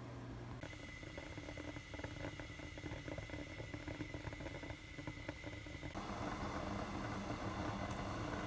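Quiet stovetop cooking sounds: water with peeled potatoes softly crackling as it heats in a pan. From about six seconds in, a fuller splashing hiss as vinegar is poured into the pot.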